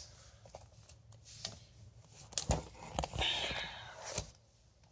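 Comic books being handled and set down: a few light taps about halfway through, then a brief papery rustle.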